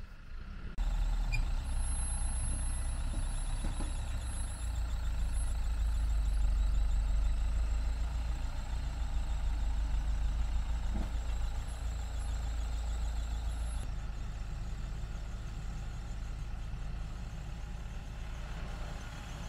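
A small vehicle's engine running hard as it tries to drive out of deep mud where it is stuck, louder toward the middle and easing off later.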